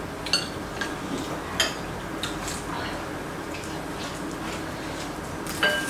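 Chopsticks clinking against dishes during a meal: a few sharp, scattered clinks with a brief ring.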